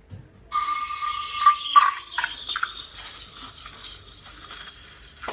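Espresso machine steam wand hissing into a stainless pitcher of milk: it comes on about half a second in with a loud hiss and a steady whistle, then turns to a rough, irregular sputtering hiss as air is drawn into the milk to foam it. The hiss fades near the end, followed by a short knock.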